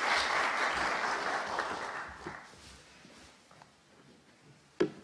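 Audience applauding, fading out over the first two or three seconds. Near the end there is a single sharp knock.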